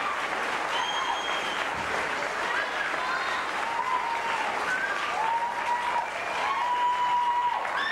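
Audience applauding after a musical number, with several drawn-out whoops from the crowd over the clapping.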